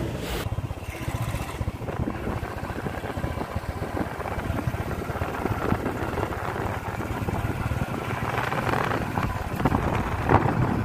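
Wind buffeting the microphone over a motorcycle engine running at riding speed, the buffeting getting louder near the end.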